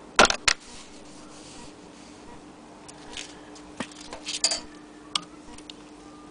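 Handling noises of hard objects: two sharp knocks about a quarter and half a second in, then a scattering of lighter clicks and clinks, over a faint steady hum.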